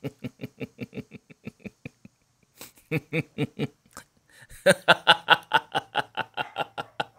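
A person laughing in quick repeated 'ha-ha' pulses, about seven a second, in three bouts, the last one the loudest.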